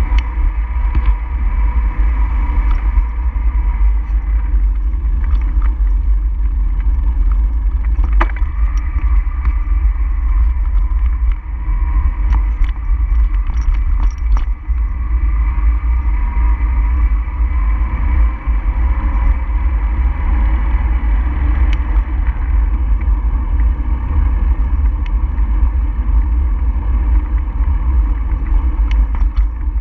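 Steady wind rumble on the microphone with road noise from moving along the route, and a few faint clicks and rattles.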